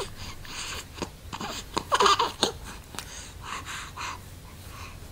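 Baby breathing noisily in a run of short, breathy sounds, loudest about two seconds in, with a brief small vocal sound among them.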